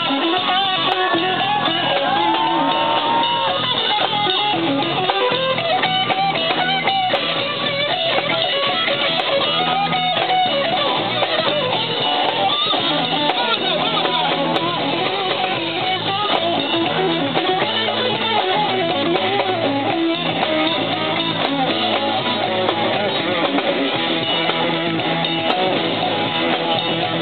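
A live rock band playing: guitar lines over bass and a drum kit, continuous and steady.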